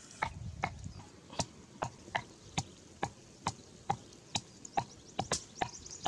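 Pestle pounding in a small mortar: a steady series of sharp knocks, about two to three a second.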